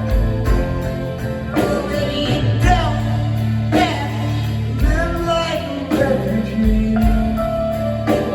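Live rock band playing between vocal lines: drums on a steady beat under sustained bass notes, with a lead instrument bending notes up and down.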